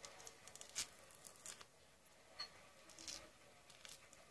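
A small orange being peeled by hand: faint scattered tearing and crackling snaps of the peel coming away, the sharpest about a second in.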